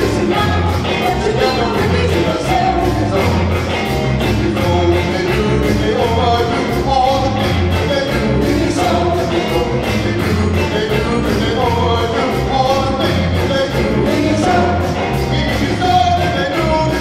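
Afrobeat band playing live, with a male and a female singer singing over a steady, repeating bass beat.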